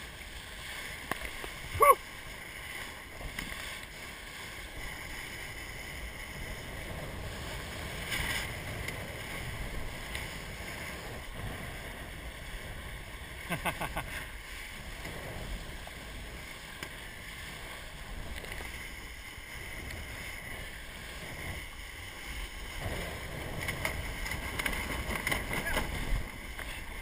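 Water rushing and splashing along the hull of a 470 sailing dinghy moving fast through choppy water, with wind on the microphone. A few short knocks about 2 seconds in and again about 14 seconds in; the rush grows a little louder near the end.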